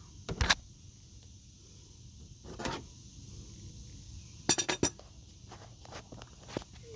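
Metal hand tools clinking and knocking against each other and the engine parts: a few separate sharp metallic clinks, with a quick run of them a little past halfway.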